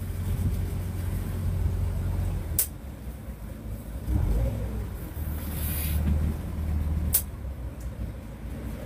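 Motor yacht's inboard engine running at slow harbour speed, a steady low hum that eases off a little near the middle and picks up again. Two sharp clicks cut through it, a few seconds apart.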